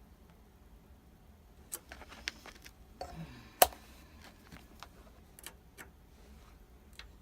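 Scattered sharp clicks and short scrapes of hand work on a water heater's thermostat and multimeter probes, with one loud sharp click about three and a half seconds in.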